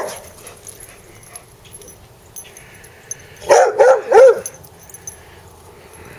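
Dog letting out a quick run of about four short, yelping barks about three and a half seconds in, eager to play.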